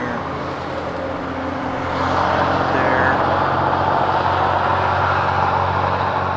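Steady road traffic noise from passing vehicles, with tyre noise and a low engine hum, getting louder about two seconds in and staying up.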